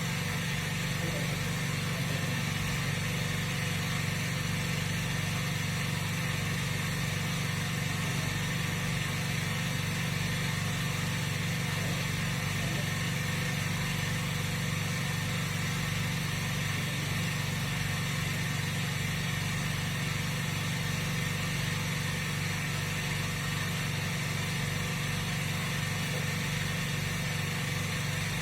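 Steady, unchanging machine hum with several constant tones.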